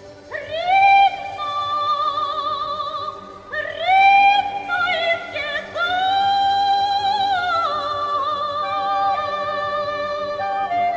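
Female voice singing three long phrases, each sliding up into a held note with wide vibrato; the third is held for several seconds before stepping down, over a sustained lower accompaniment, in a 1961 concert recording.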